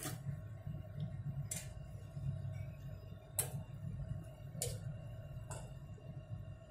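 Chopsticks clicking against a pan of boiling instant noodles as they are stirred, five sharp taps spread over a few seconds, over the steady low rumble of the pan boiling on a gas stove.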